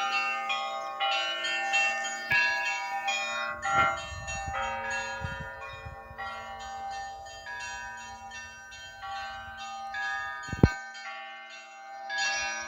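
Russian church bells ringing: rapid strikes on the higher small bells over the lingering hum of larger bells, the tones overlapping. One sharp knock stands out as the loudest moment about ten and a half seconds in.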